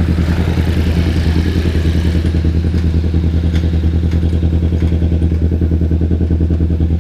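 Motorcycle engine running at a steady idle, with an even throb.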